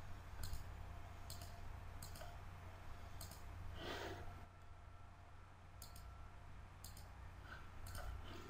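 Computer mouse clicking: scattered single clicks, a second or so apart, over a faint steady hum.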